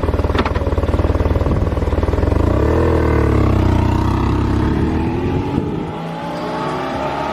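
Motorcycle engine running loudly, its pitch rising and falling as it is revved.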